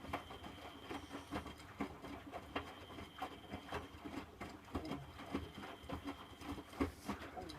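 Miele W Classic WDA110 washing machine tumbling a wash load of dark garments and denim in its drum, with an irregular run of light clicks and taps over a faint steady whine and hum.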